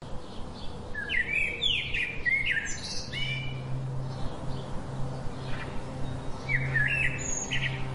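A songbird singing quick chirping phrases in two bursts, one early and one near the end. A low, steady synth tone comes in underneath about three seconds in and pulses on and off.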